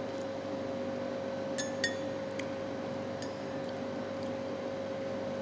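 Steady kitchen room hum with one held tone. A few light clinks, two close together about two seconds in and fainter ones after.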